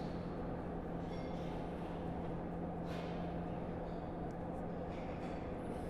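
A steady low hum with a couple of faint light metal clicks as a set screw is turned into the head nut of a lift pump.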